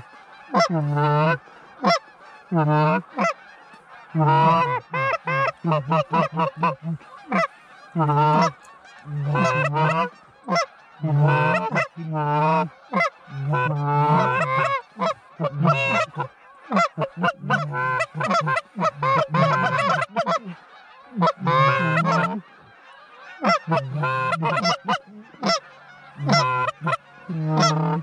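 Canada goose honks and clucks in rapid, loud runs of short calls, with brief pauses between the runs.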